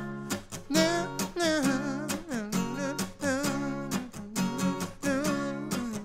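Acoustic guitar strummed in a steady rhythm, with a man's voice singing a melodic line, without clear words, over it in several short phrases.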